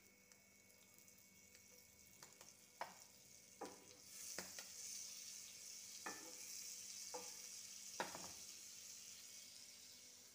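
Butter sizzling faintly as it melts and foams in a frying pan, the sizzle swelling about four seconds in. A utensil knocks against the pan about six times.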